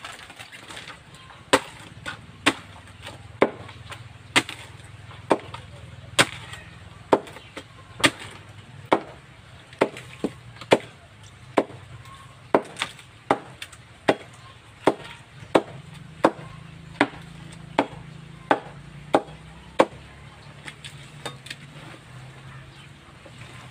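Banana trunk being chopped into pieces with a blade, sharp chops coming steadily about once a second. The chops give way to a few lighter, quieter cuts near the end.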